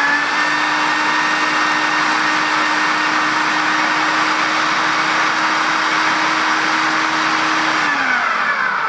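Electric food processor running steadily, its blade puréeing roasted tomatillos and peppers into a wet salsa with a constant motor whine. About eight seconds in it is switched off and spins down, the pitch falling away.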